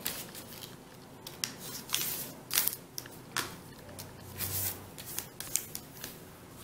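Smooth double-sided origami paper being folded and creased by hand: a string of short, irregular rustles and crackles as the fingers slide along and press down the folds.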